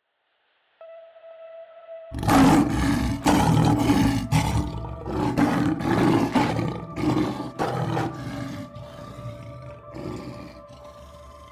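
A large animal roaring again and again, about once a second, strongest in the middle and trailing off, over background music with held tones.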